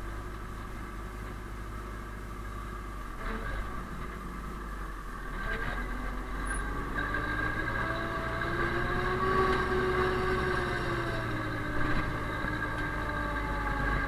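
DT-75 crawler tractor's diesel engine running steadily under load as its blade pushes snow, heard from inside the cab. It grows louder about halfway through, with a note that rises and then falls away.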